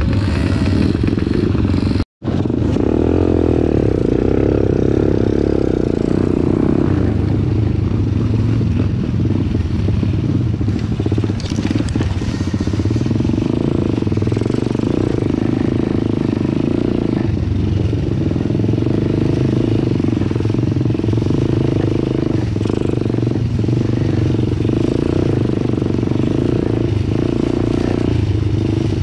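Motorcycle engine running at a fairly steady speed, with occasional knocks and rattles. The sound cuts out for a split second about two seconds in.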